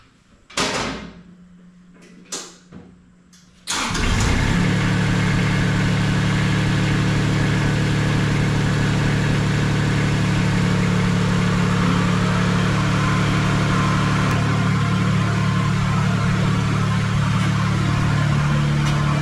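A Bobcat skid-steer loader's engine starts about four seconds in, after a few knocks, and then runs steadily at idle.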